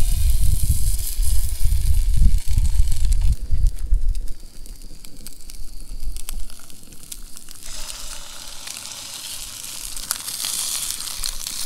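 Brook trout fillets sizzling and crackling in a hot pan. The sizzle eases a few seconds in and swells again about eight seconds in. A low rumble runs under it for the first four seconds or so.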